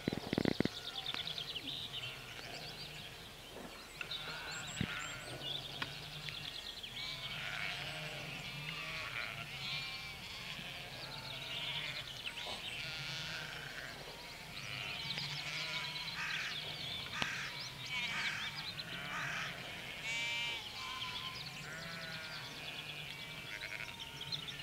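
A flock of sheep bleating, many overlapping calls in quick succession throughout. A brief loud thump comes right at the start.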